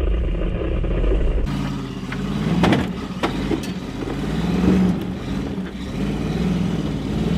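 Hummer H2's V8 engine revving up and down under load as it crawls up a steep forest trail, with a few sharp knocks mixed in.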